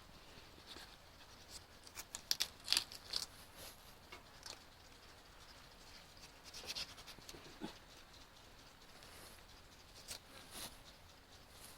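Knife cutting and scraping, in short clusters of clicks and scrapes separated by quieter pauses.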